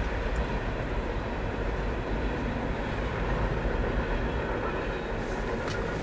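Freight cars rolling past: a steady rumble of steel wheels on the rails, with a couple of faint sharp clicks about five seconds in.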